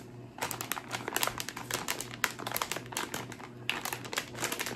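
Plastic mystery-bag packaging crinkling and crackling as it is handled and opened by hand. The rapid crackles start about half a second in and pause briefly near the end.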